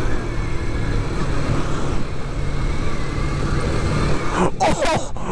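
Kawasaki Ninja 250's parallel-twin engine running steadily while riding, with wind rushing over the chin-mounted camera microphone. A man's shout breaks in near the end.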